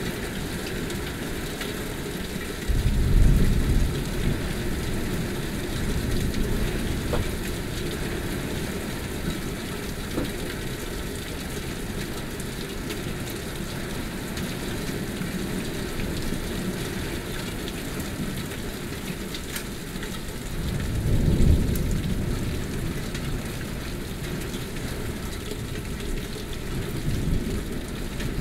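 Heavy rain falling steadily during a thunderstorm. Low rumbles of thunder swell up about three seconds in and again about twenty-one seconds in.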